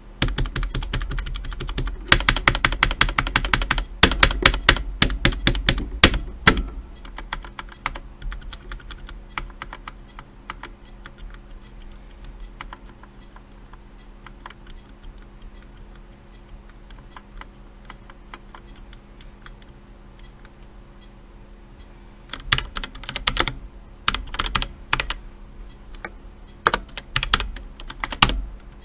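Typing on a DEXP Tanto RGB mechanical keyboard with Outemu Red linear switches. Fast, heavy keystrokes for the first several seconds, then light, sparse taps for a long stretch, and quick bursts of typing again near the end.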